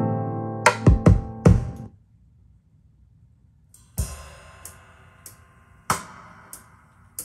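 Recorded music with drums playing through a home-built dipole loudspeaker (slot-loaded open-baffle woofers, 6.5-inch midrange, planar tweeter in a waveguide). A held chord fades under three quick drum hits about a second in. After a nearly silent pause, two loud drum and cymbal hits ring out at about four and six seconds.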